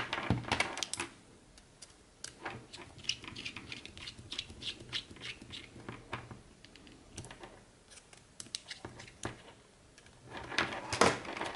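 Irregular light clicks and ticks of a small screwdriver and tiny screws being worked into a 3D-printed micro-quadcopter frame, with a few louder handling clicks near the start and again near the end.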